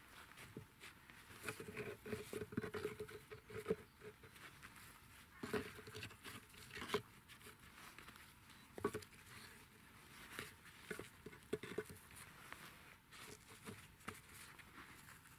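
Scattered light knocks, clicks and scrapes as gloved hands fit small stones against the open back of a stoneware half-pipe, with rustling in the grass.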